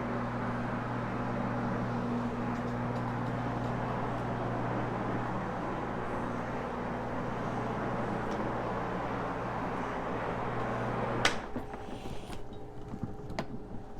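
Electric carpet-cleaning floor machine scrubbing carpet with a fibre pad, running with a steady motor hum, then switched off with a sharp click about eleven seconds in. A few light clicks and handling noises follow.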